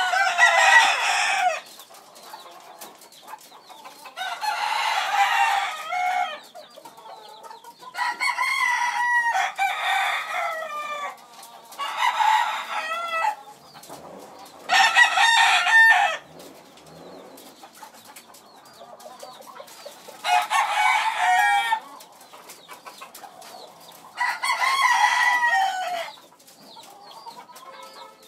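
Chickens: a rooster crowing about eight times, each crow a second or two long and falling in pitch at the end, with quieter clucking between the crows.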